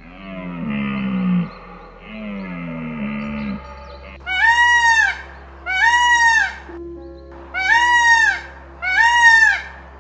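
Indian peafowl (peacock) calling four times, loud high calls about a second apart, each rising and falling in pitch. Before them come two lower calls that fall in pitch, from another animal.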